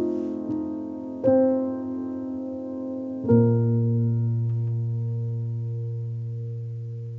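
Background piano music: a few soft chords, the last struck about three seconds in and left to ring and slowly fade.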